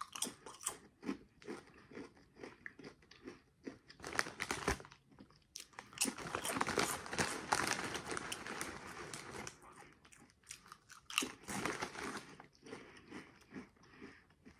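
Close-up crunching and chewing of Doritos tortilla chips, with the foil chip bag crinkling as a hand reaches in for more.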